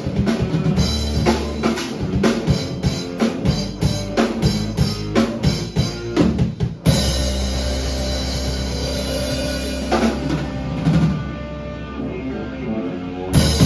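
Live progressive/math-rock trio of drum kit, electric bass and electric guitar playing a busy, drum-driven instrumental passage. About seven seconds in, a crash sets off a long ringing chord over cymbal wash and a held bass note, and another sharp hit comes near the end.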